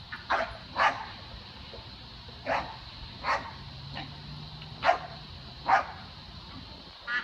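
A dog barking about seven short barks at irregular intervals while playfully lunging at a rooster.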